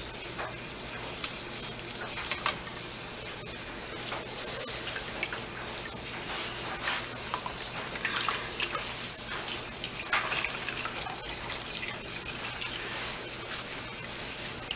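Herbal infused oil dripping and trickling out of a squeezed cloth milk bag through a mesh strainer into a steel bowl, in an uneven patter, with the handling of the wet bag in gloved hands.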